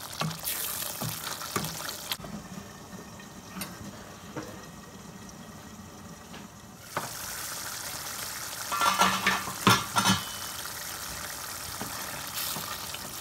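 Thick tomato-and-yogurt curry sauce sizzling and bubbling in a nonstick pot as a wooden spoon stirs it. From about two seconds in it turns quieter and muffled while a steel lid covers the pot. A few sharp clattering knocks follow about two-thirds of the way through, as the lid comes off and stirring resumes.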